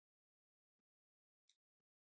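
Near silence, with one faint short click about one and a half seconds in.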